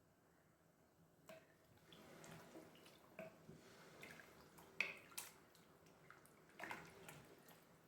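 Faint scattered clicks and taps in quiet room tone, the sharpest a little before five seconds in.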